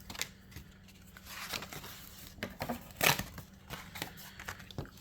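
Paper scratch-off lottery tickets being handled: short rustles and scrapes of stiff paper, with one louder rustle about three seconds in.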